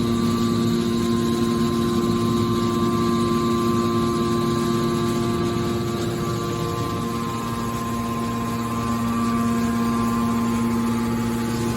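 Hydraulic metal scrap baler's power unit, its electric motor and hydraulic pump, running steadily with a hum and a whine. It eases slightly a little past the middle, then picks up again.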